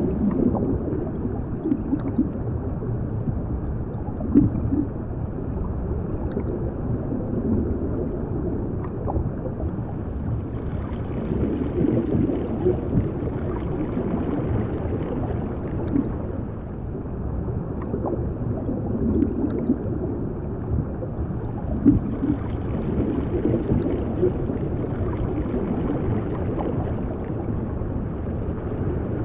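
Underwater ambience: a steady, muffled rumble of bubbling and gurgling water, with all its weight low down.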